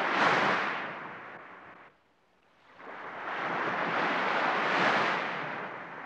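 Surf breaking and washing up a sandy beach in two surges. The first dies away about two seconds in; the second swells up and fades out near the end.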